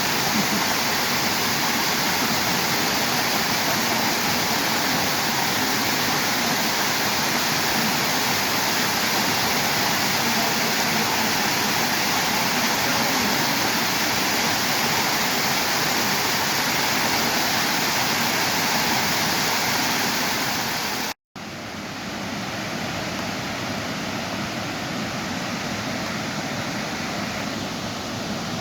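Waterfall pouring steadily, a dense even rush of falling water. About 21 seconds in it drops out for an instant and comes back a little quieter.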